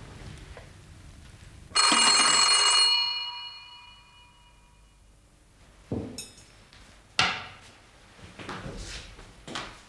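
A servants' call bell rings loudly about two seconds in, its tone dying away over the next two seconds. A few sharp knocks and clinks follow later.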